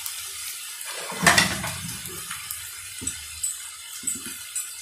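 Diced potatoes and poi stalks frying in oil in a wok: a steady sizzle with small scattered pops, and one brief louder clatter about a second in.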